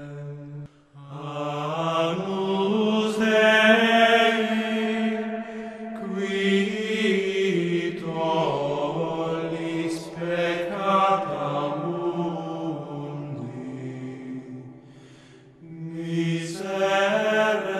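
Slow vocal chant as background music: voices hold long notes in unbroken phrases. There is a brief gap about a second in and a quieter dip near the end before the singing swells again.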